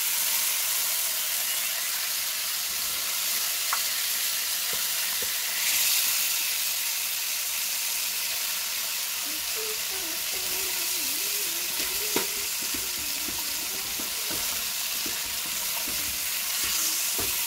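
Ham slices wrapped around shredded cabbage sizzling steadily as they fry in oil in a nonstick frying pan. A few light clicks come from the spatula and wooden spoon turning the roll in the pan, the sharpest about twelve seconds in.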